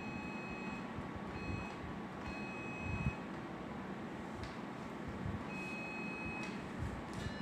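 Surgical equipment's high steady beep tone sounding in four spells of a fraction of a second to about a second each, over steady operating-room background noise, with a low thump about three seconds in.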